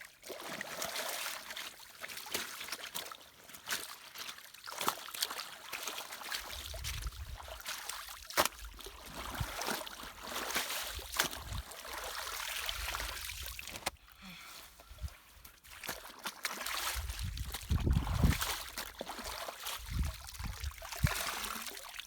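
River water splashing and trickling as clothes are rinsed by hand, with scattered small splashes and drips and a few stretches of low rumble.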